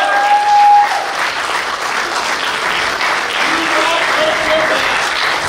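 Wrestling crowd clapping and cheering, with a few voices calling out over the applause.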